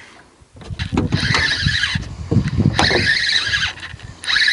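A spinning reel being cranked in three stretches of about a second each, a whirring buzz, while a hooked fish bends the rod, with a low rumble underneath.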